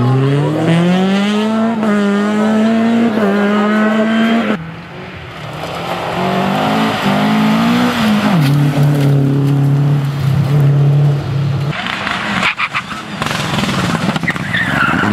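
Rally cars at full throttle on a special stage, in cut-together passes. First a Honda Civic's engine revs hard, rising in pitch with a gear change about two seconds in. After a cut, another car's engine rises and then holds a steady high note. The last stretch is rushing tyre and road noise with several sharp cracks.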